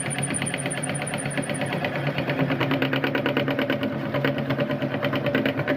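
Electric meat grinder running as corn is fed through it: a steady motor hum with a fast, even rattle that grows stronger about two seconds in.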